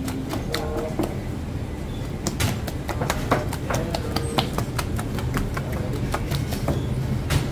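Irregular clicks and knocks of bakery work, a few a second, over a steady low hum.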